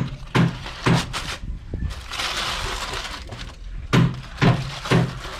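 Rhythmic knocking, about two knocks a second, which stops for a couple of seconds of hissing in the middle and then starts again.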